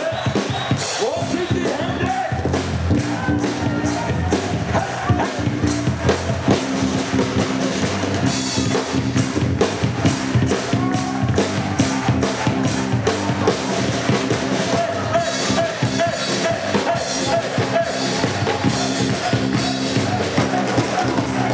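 Live brass band with a drum kit playing an upbeat number: brass over a steady drum beat.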